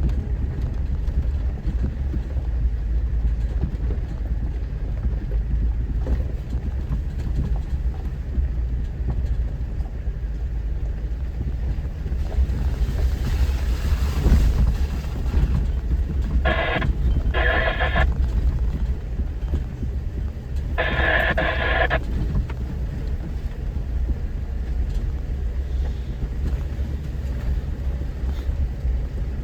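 Off-road vehicle's engine and drivetrain rumbling steadily at low speed on a dirt mountain trail. Three short higher-pitched sounds come about halfway through.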